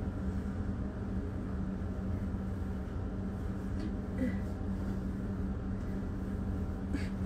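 A steady low machine hum with a constant tone, unchanging throughout.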